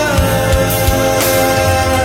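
Instrumental song music: held chords over a bass line, with a few drum hits.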